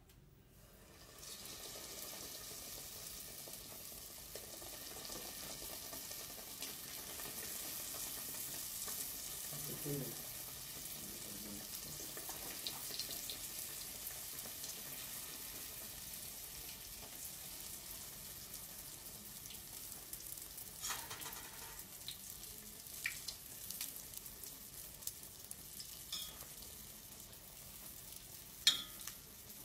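Food frying in hot oil in a steel pot: a steady sizzle that starts about a second in, with a few sharp clinks of a utensil against the pot in the second half, the loudest near the end.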